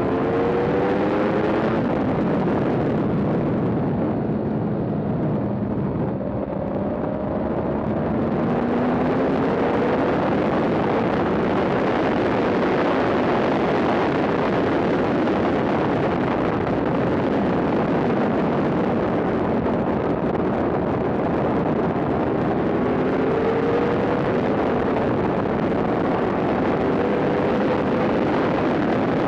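Yamaha R1 sportbike engine running hard at track speed under heavy wind rush on an onboard camera microphone. The wind rush and revs ease about five seconds in, then climb again.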